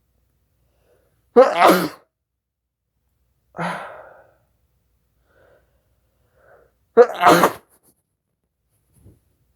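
A person sneezing twice, hard, about five and a half seconds apart, with a softer breathy sound between the two sneezes. The sneezes are brought on by snorting Chhinkni sneezing powder.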